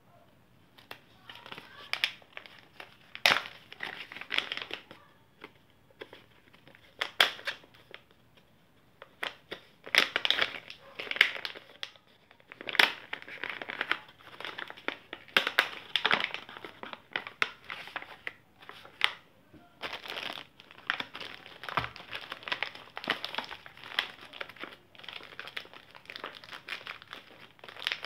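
Stiff white paper bags being opened and worked by hand, crinkling in irregular bursts with short pauses between them.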